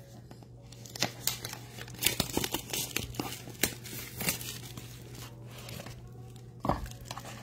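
Plastic shrink-wrap crinkling and tearing as it is stripped off a sealed Panini Court Kings NBA trading card box: a long run of sharp crackles. A single soft knock comes near the end as the box is opened.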